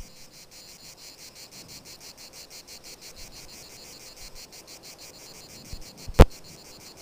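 Faint, rapid, even pulsing chirps of crickets. One sharp loud click cuts across them about six seconds in.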